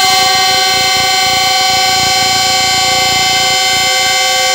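Diesel-electric locomotive's air horn (GEU-20 class) sounding one long departure whistle, several tones together.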